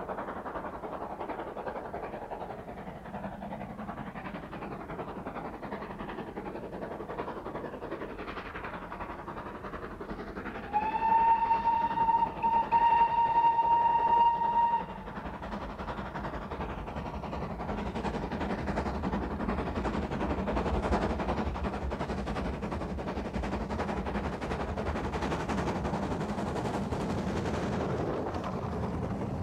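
British Railways Standard steam locomotive hauling a passenger train, its exhaust beats growing louder as it approaches. About eleven seconds in it sounds its whistle for about four seconds, with a brief break partway through.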